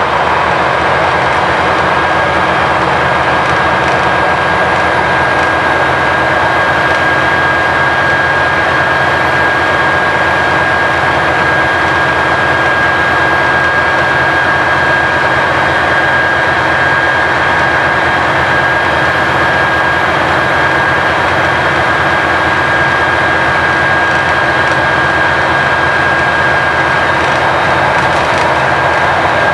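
Volvo B9TL double-decker bus with its 9.4-litre six-cylinder diesel pulling hard at steady motorway speed, heard inside on the upper deck. A loud, unchanging drone of engine, drivetrain, tyres and wind, with a steady high whine over it.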